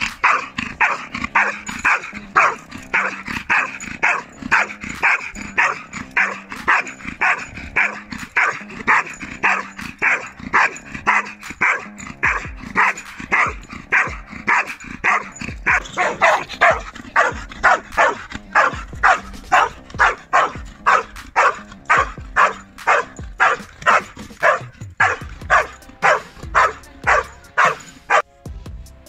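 Belgian Malinois barking continuously and rhythmically at a helper hidden in a training blind, about two barks a second: the hold-and-bark exercise of protection training.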